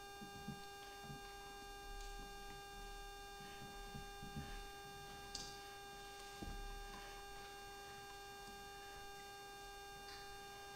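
Steady electrical hum, with a few faint, scattered knocks and rustles from a person moving about and handling a book.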